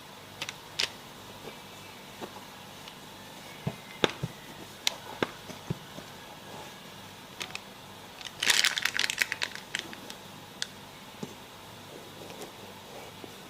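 Scattered light clicks and knocks of things being handled, with a dense crinkling crackle lasting about a second around eight and a half seconds in.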